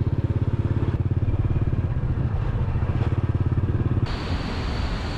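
Small motorbike engine running with a steady pulsing beat. About four seconds in it gives way abruptly to an even rushing noise.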